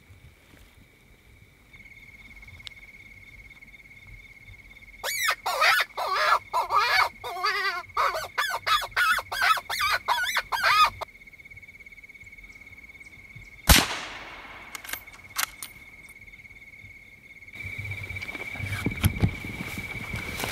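A run of loud, wavering squealing and yelping calls, repeated rapidly for about six seconds, then a single rifle shot a few seconds later with a ringing echo, followed by a couple of small clicks.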